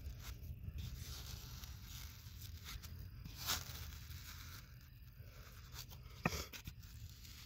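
Faint, irregular scraping and crunching of a hand tool and fingers digging into packed sediment, with a sharper click about three and a half seconds in.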